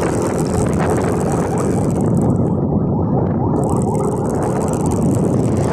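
Steady wind buffeting on the microphone of a handlebar-mounted camera while riding, heard as a dense low rumble mixed with road noise. The higher hiss thins out for a second or so around the middle.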